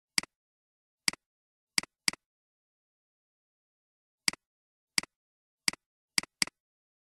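Computer mouse button clicks: nine sharp clicks at irregular intervals, each press followed at once by a fainter release click.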